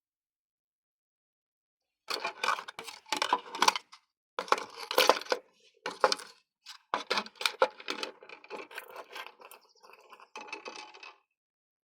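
Clattering and clicking of small hard objects being handled, in uneven bursts that start about two seconds in and stop about a second before the end.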